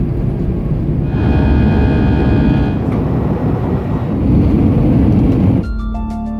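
Jet airliner engines running at high thrust: a loud, deep rumbling roar with a steady whine over it for a couple of seconds. It cuts off suddenly near the end as music begins.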